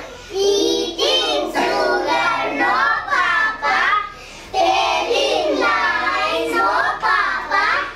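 Young schoolchildren singing together in high voices, in phrases of about two seconds with short breaks between.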